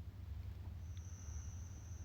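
A steady, high-pitched insect trill starts just under a second in and holds on, over a low, steady rumble.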